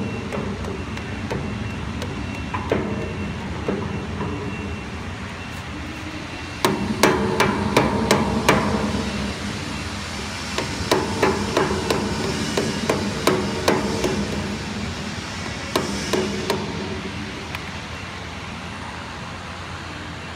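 A steel hinge pin is driven into its bore with a red-headed mallet, the blows ringing through the steel. There are a few lighter knocks at first. From about seven seconds in come quick runs of several strikes a second, each run lasting a second or two.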